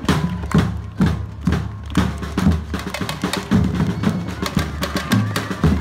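Batucada drum ensemble playing: deep surdo bass drums struck with mallets boom under sharper stick strikes on smaller drums in a steady rhythm. The strikes come about twice a second at first and grow busier about two seconds in.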